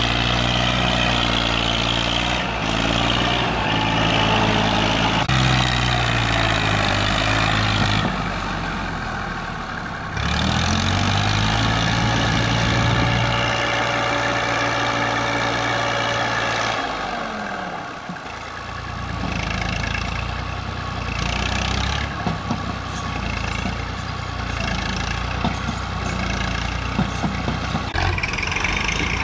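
Massey Ferguson 240 tractor's three-cylinder diesel engine running under load while it pulls a trailer heaped with soil. The engine note climbs and drops a few times and changes abruptly several times.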